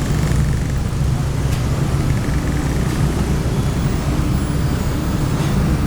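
Heavy diesel engine of road-paving machinery running steadily at a constant speed, a low, even rumble.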